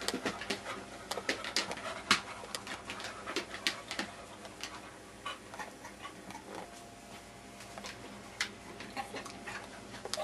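English cocker spaniel panting, with irregular sharp ticks and taps, several a second at first and fewer later on.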